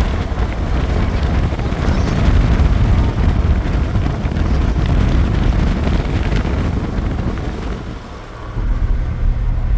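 Wind buffeting the microphone: a loud, fluttering low rumble that eases near the end.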